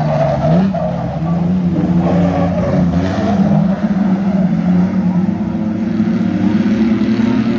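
Several race car engines running together on a dirt speedway, their pitch rising and falling as they rev through the laps.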